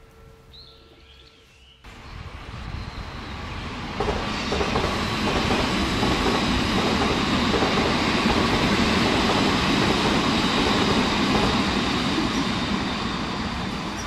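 A brief high bird call in the first second or so, then from about two seconds in the loud, even rumble of a passing vehicle swells up, holds steady, and starts to fade near the end.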